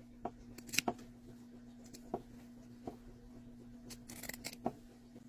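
Pinking shears snipping through layered fabric: several quiet, sharp snips at uneven intervals, over a faint steady hum.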